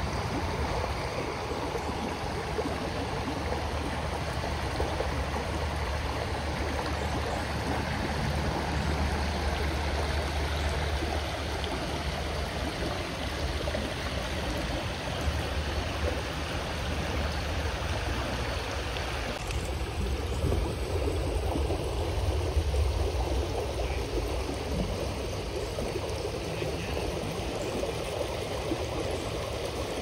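Shallow creek running steadily over rocks and stones: a continuous rushing water sound. Its character shifts slightly about two-thirds of the way in.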